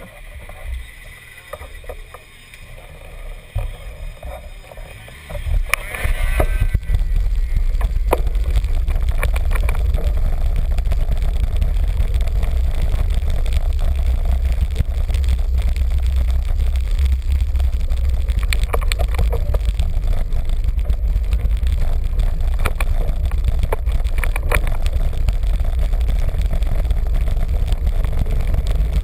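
Wind buffeting the microphone of a camera mounted on a moving bicycle: a steady low rumble that sets in about six seconds in as the bike gets under way, with scattered clicks and rattles over it. Before that, quieter street noise while the bike stands at the lights.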